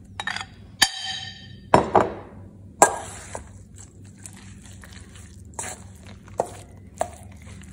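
A fork clinking and scraping against a ceramic bowl and a stainless steel mixing bowl as mashed roasted aubergine is scraped out and stirred into ground walnut paste. A sharp clink about a second in rings on briefly, followed by a few knocks and softer taps and scrapes.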